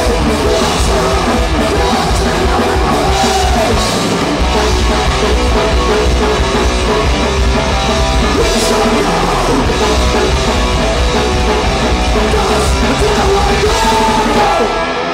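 A live punk rock band plays loudly with drum kit and singing. The song stops right at the end.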